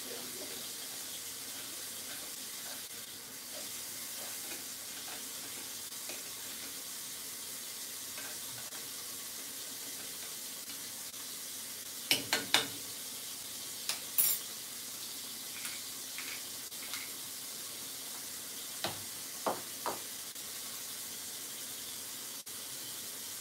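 Food frying in a pan on a gas stove: a steady sizzling hiss, with short clinks and clatter of pots and utensils about halfway through, again a couple of seconds later, and twice near the end.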